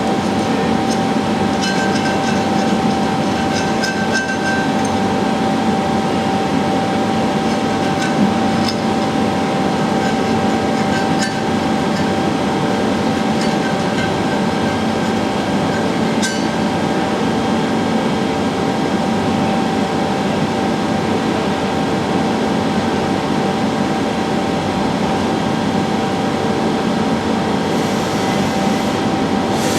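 Leadwell V-60IT 5-axis CNC machining centre running: a steady whine over continuous machine noise, with scattered light metallic clinks. There is a brief hiss near the end.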